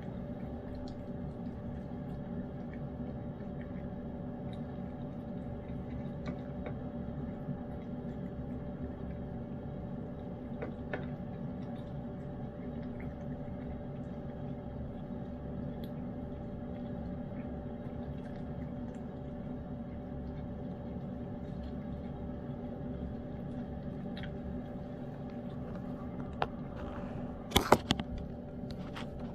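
A steady low hum runs throughout, with a few faint ticks. A short cluster of sharp clicks comes near the end.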